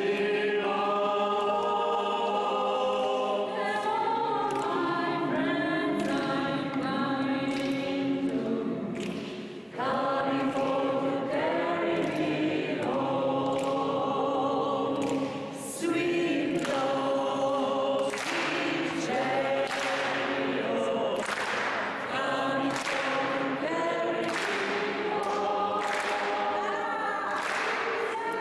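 Mixed choir of men's and women's voices singing unaccompanied in sustained chords, with short breaks between phrases about ten and fifteen and a half seconds in.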